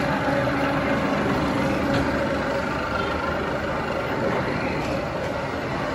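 Sugarcane crusher and conveyor machinery of a jaggery plant running, a continuous steady mechanical drone with a faint hum.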